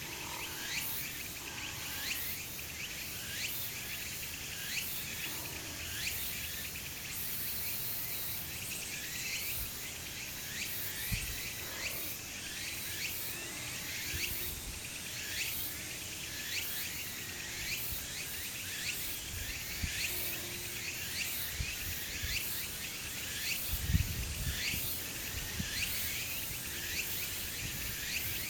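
Outdoor insect chorus: short falling chirps repeating many times a second over a steady hiss. A dull low thump comes about 11 seconds in, and a louder one near 24 seconds.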